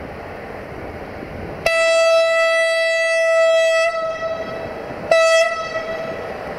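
Horn of an LE5100 electric locomotive sounding one long single-pitch blast of about two seconds, then a short blast about a second later.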